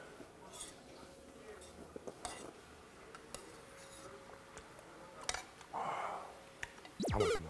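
A metal spoon scraping and clicking against a bowl as the last of a bowl of chicken porridge is eaten, in a few small, sparse clinks. A short burst of playful music with sliding notes comes in near the end.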